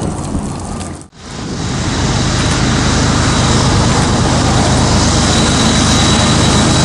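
Union Pacific freight train's diesel locomotives approaching under power: a steady low engine drone under a broad rush. It cuts in after a brief drop about a second in, then swells and holds steady.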